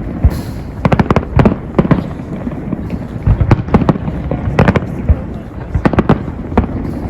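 Fireworks display: an irregular run of sharp bangs and crackles, some coming in quick clusters.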